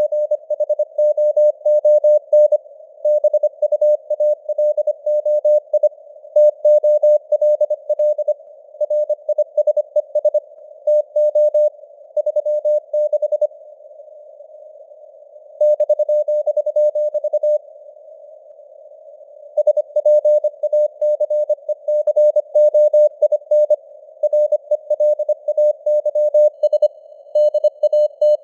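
Morse code (CW) sent at 25 words per minute: a single mid-pitched tone keyed on and off in quick dots and dashes over a narrow band of hiss that simulates radio-receiver noise. Two breaks of about two seconds come a little after the middle.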